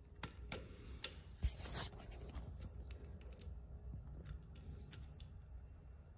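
Small metal clicks and ticks of a terminal screw being undone and a wire's ring terminal worked loose on a motorcycle ignition coil. There are a few sharper clicks in the first two seconds, then a run of lighter ticks.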